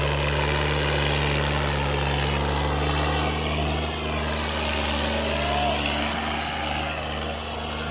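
Tractor diesel engines running steadily under heavy pulling load during a tractor tug-of-war, holding an even pitch with a slight dip about halfway and again near the end.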